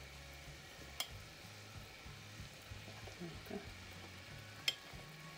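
Melted butter sizzling faintly in a stainless steel pot over a low hum, as flour is spooned in for a roux. A spoon clinks sharply twice, about a second in and near the end.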